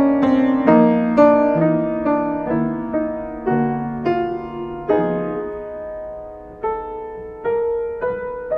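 Solo piano playing a slow prelude: chords struck about twice a second, each note ringing and fading. After about five seconds the chords come further apart and softer.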